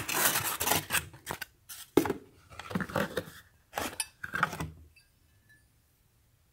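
Styrofoam packing and cardboard box flaps scraping and rustling in a quick series of rubbing strokes as a ceramic mug is unpacked; the handling stops about five seconds in.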